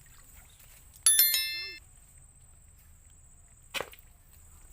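A single metallic clang about a second in, ringing with several tones that fade over well under a second, followed nearly three seconds later by one sharp knock.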